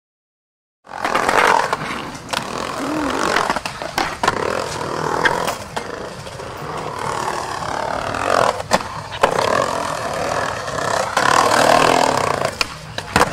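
Skateboard rolling on concrete, a steady rough roar of the wheels with scattered sharp clacks of the board hitting the ground, starting about a second in. The wheels have a bad flat spot.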